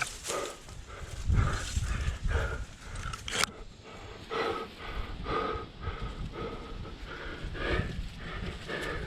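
Climber breathing hard in a rhythmic series of pants, about one to two breaths a second, with a low rumble of wind on the microphone underneath.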